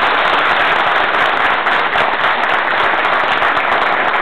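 A large audience applauding: many people clapping together in a dense, steady wash.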